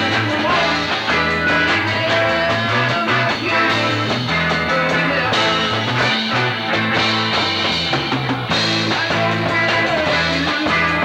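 Rock band playing live: electric guitar, bass guitar and a drum kit together, loud and continuous.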